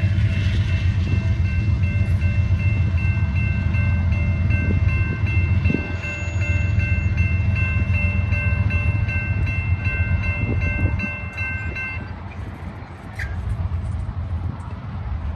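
A train passing with a heavy, steady low rumble, along with a steady high-pitched chord of signal tones that cuts off about twelve seconds in; the rumble then fades away.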